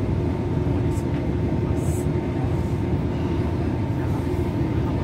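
Cabin running noise of a DB class 612 diesel multiple unit travelling at speed: a steady low rumble of engine and wheels on the rails, with a faint steady whine above it.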